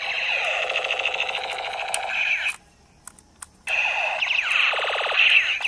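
Battery-powered musical toy handgun playing its electronic sound effects through its speaker when the trigger is pressed: a fast warbling electronic tone that cuts off about two and a half seconds in. After about a second's pause a second burst follows, with repeated falling zaps.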